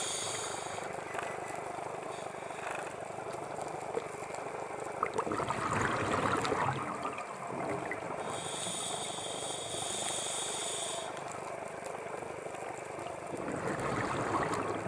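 Scuba diver breathing through a regulator underwater. A hissing inhale with a whistle-like high tone at the start and again about eight seconds in, and bubbling exhales between them, the loudest around six seconds in.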